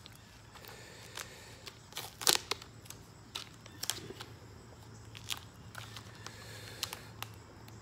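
Heavy-duty tape being wrapped and pressed around a welding helmet's head strap and a plastic car phone mount: scattered crackles and clicks, the loudest a little over two seconds in. A low steady hum runs underneath.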